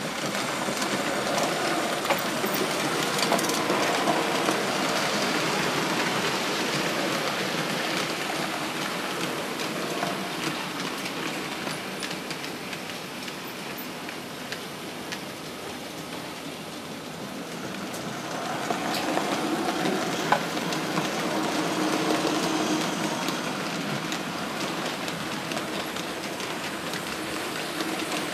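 HO scale Märklin model trains running on the layout's track: a steady rattle and rumble of small wheels on metal rails with scattered clicks. It swells again about 18 seconds in as a train of freight wagons passes close.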